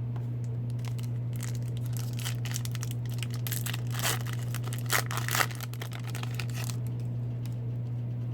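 A hockey card pack's wrapper being torn open and crinkled by hand, in scattered crackles that are densest about halfway through, over a steady low hum.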